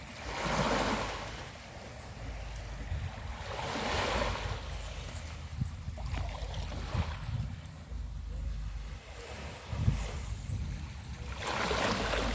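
Small sea waves breaking and washing on a beach, the surf swelling and fading about three times. A faint high ticking repeats about twice a second, and there is a low thump near the ten-second mark.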